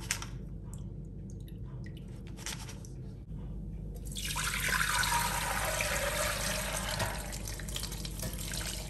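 A few faint clicks, then thick, orange palm nut extract poured in a steady stream through a stainless steel colander into a glass bowl, splashing from about halfway through.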